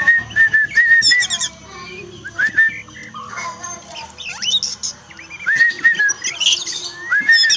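Songbird singing a varied tutor song: a run of clear, level whistled notes repeated several times, broken by rising chirps and quick high trills. A masteran recording played to train a caged oriental magpie-robin to sing.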